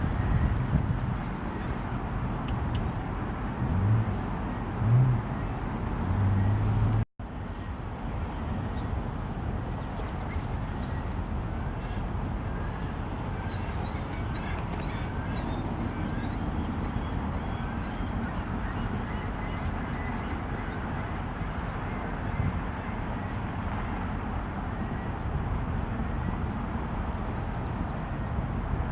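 Steady outdoor background rumble, with faint high bird chirps repeating through the middle stretch. The sound cuts out for a moment about seven seconds in.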